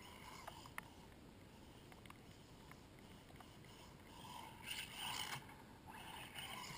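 Losi Mini 8ight 1/14-scale electric RC buggy driving on grass at a distance, a faint motor whine with tyre noise. It swells twice in the second half as the buggy passes.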